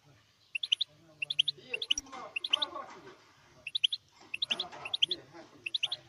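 Goldfinch mule (goldfinch × canary hybrid) chirping: short sharp high notes in quick clusters of three or four, the clusters repeated every half second to a second, over fainter lower twittering.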